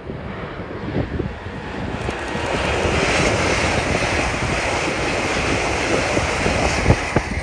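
Class 800 intercity train running past at speed: a loud rush of wheel and air noise that builds from about two seconds in and stops abruptly at the end, with wind buffeting the microphone throughout.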